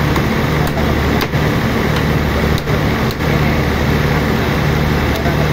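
Steady drone of sawmill machinery running, with a few sharp hammer taps on wood as a guide board is nailed onto a log on the saw carriage.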